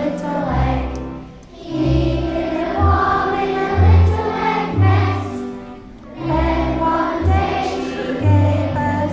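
A large group of young children singing an action song together over a musical accompaniment with a steady bass line.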